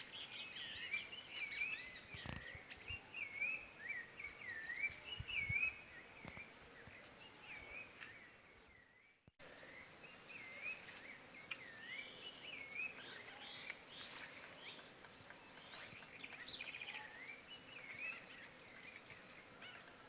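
Rufous-bellied thrush (sabiá-laranjeira) singing short curling whistled notes, repeated over and over, over a steady high insect trill. The sound fades out briefly about nine seconds in and comes back.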